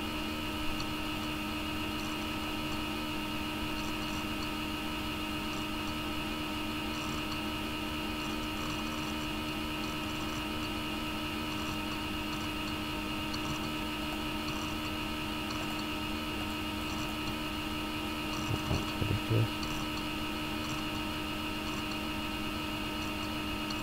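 Steady background hum with several fixed tones over an even hiss, like a computer's fan and electrical hum picked up by the recording microphone. A few soft knocks come close together about eighteen to nineteen seconds in.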